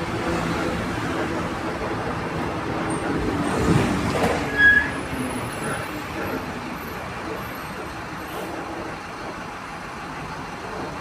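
Mercedes-Benz LO 916 bus under way, its four-cylinder OM 924 LA diesel and drivetrain droning, with the growling differential the bus is known for. About four seconds in there is a brief loud clunk and a short squeal, and then the noise gradually gets quieter.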